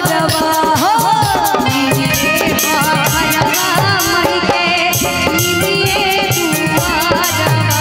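Live amplified Bhojpuri devotional song (a Durga maa bhajan): a woman singing into a microphone over a steady hand-drum beat with jingling percussion and keyboard.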